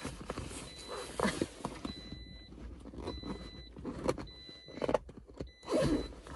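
Faux leather car seat cover rustling and rubbing as it is pulled and tugged down over the seat back, with scattered clicks and knocks from its straps and buckles against the seat. A faint high beep repeats on and off throughout.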